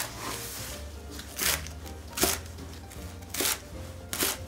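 Kitchen knife cutting through a bunch of garlic chives onto a wooden cutting board, five chops about a second apart.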